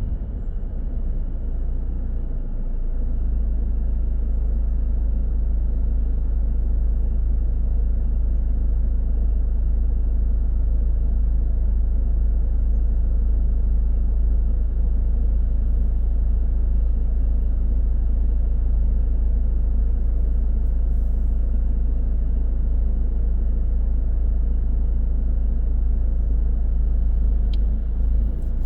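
Steady low rumble of a car driving through city traffic, road and engine noise, growing slightly louder about three seconds in, with a faint steady high whine over it.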